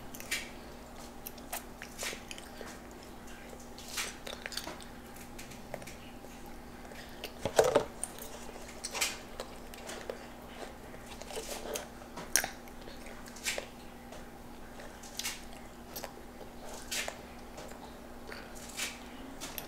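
Toddlers chewing juicy orange segments and blueberries: irregular wet mouth smacks and clicks about once a second, with one louder smack about seven and a half seconds in.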